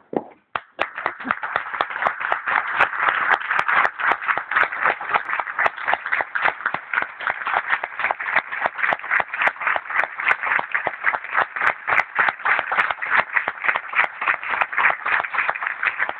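A packed theatre audience applauding, a dense, steady wash of many hands clapping that begins about half a second in.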